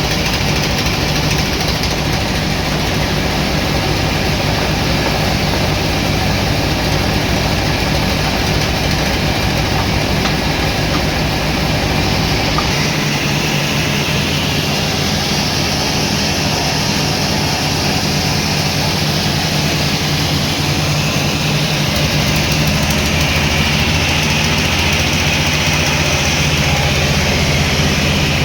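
Sawmill machinery running steadily with a deep engine hum. About halfway in, a higher-pitched whine joins and fades again near the end.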